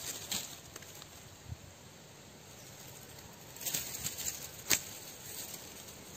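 Soft scraping and rustling of soil and dry leaf litter around the base of a small shrub being cleared by hand, with a couple of sharp clicks, one near the start and one past the middle.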